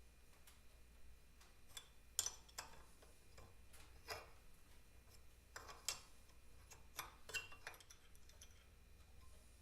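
Light, irregular clicks and clinks of small metal carburetor parts being handled and set down during reassembly of an Amal pre-monobloc carburetor, the sharpest tap a little past two seconds in.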